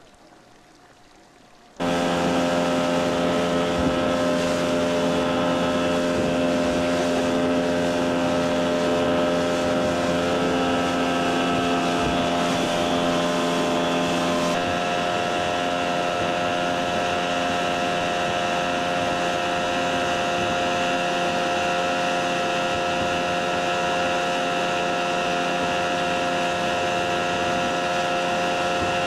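Motorboat engine running steadily at speed, with wind and water rushing from the wake. It starts abruptly about two seconds in, and its tone shifts about halfway through.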